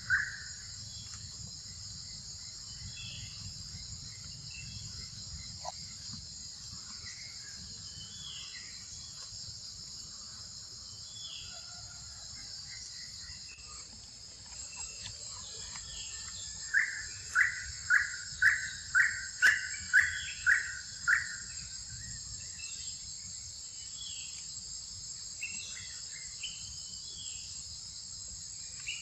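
Forest insects droning steadily at a high pitch, with scattered short bird chirps. A little past the middle, a loud call repeats about nine times at roughly two notes a second.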